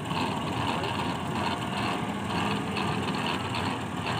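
A tractor engine running steadily, driving a belt-driven thresher through a flat belt to its flywheel. The machinery's sound pulses about twice a second.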